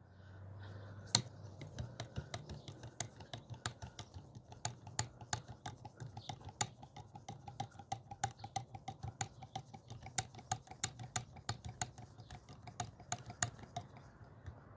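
Hydraulic knockout tool being worked while it is bled of air: a long run of small, sharp clicks, roughly three or four a second, over a faint low hum.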